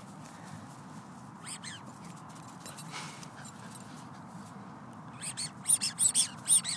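Small toy-sized Australian Shepherd giving short, high-pitched whines during fetch play: one brief cry about a second and a half in, then a quick run of six or so near the end.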